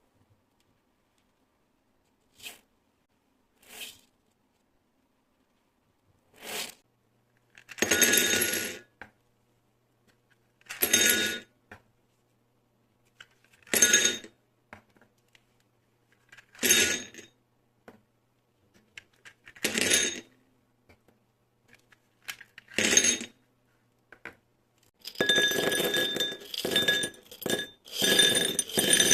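Small hard beads clinking and clattering as they are dropped or poured onto a hard surface, with a ringing clink in each burst. A few single clicks come first, then short pours about every three seconds, and near the end a continuous pouring clatter.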